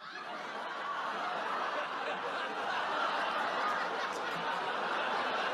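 Studio audience laughing, a dense wash of laughter that builds over the first second or so and then holds steady.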